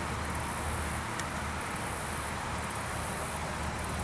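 Steady outdoor background of insects chirring high-pitched, over a steady low rumble.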